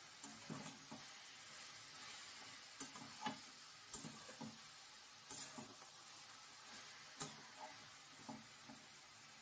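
A spatula stirring and scraping shredded cabbage and fish-head curry around a stainless steel pan, with irregular short scrapes and knocks.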